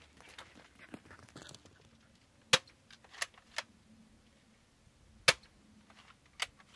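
Bug-A-Salt salt gun firing at flies: two loud sharp snaps about three seconds apart, with a few fainter clicks between and after them.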